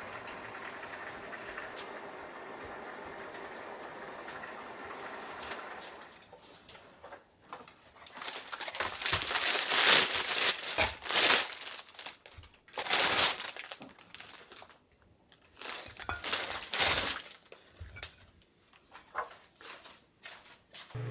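Thin clear plastic bread bag crinkling in irregular bursts as it is opened and slices are pulled out, starting about six seconds in after a steady low hiss.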